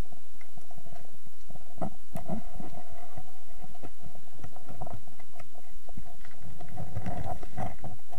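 Muffled underwater noise through a camera housing: irregular low thumps and rumbles with a faint steady whine, the thumps getting denser near the end.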